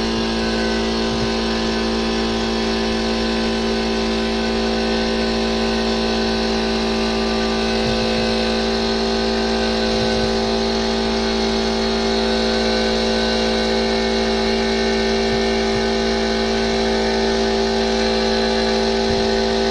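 Electric polisher fitted with a 1500-grit sanding disc, running at a steady speed with a constant whine, wet-sanding an aluminium wheel.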